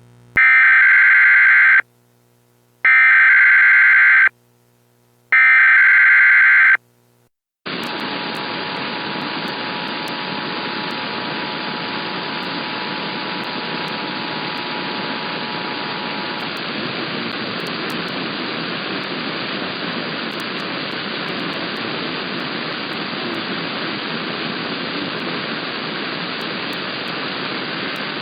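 Emergency Alert System header data tones sounding in three bursts about a second apart, then heavy radio static. Over the static the two-tone EAS attention signal sounds faintly for about nine seconds, then only the static remains: the opening of a required monthly EAS test.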